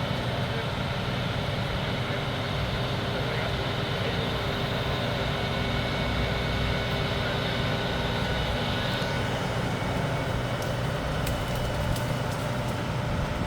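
The heavy truck engine of a truck-mounted crane runs steadily under load, powering the crane's hydraulics through the truck's PTO while the arm moves a cut branch. A few light clicks come near the end.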